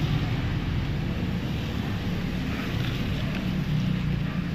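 Steady rumble and hiss of traffic passing on the street.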